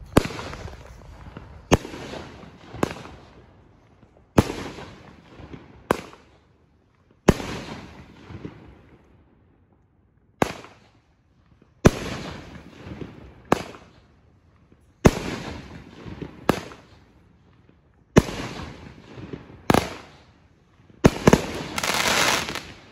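A 200 gram 9-shot consumer firework cake firing its shells one after another: loud, sharp bangs about every second and a half, each trailing off. Near the end comes a dense crackle of the finale's crackling chrysanthemum breaks.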